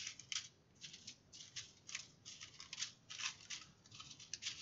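Small plastic zip bags of diamond-painting drills rustling and crinkling as a hand sorts through a pile of them, in short irregular bursts.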